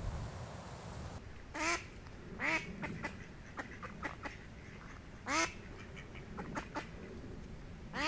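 Female mallard quacking: loud single quacks a second or a few seconds apart, with faint short ticks between.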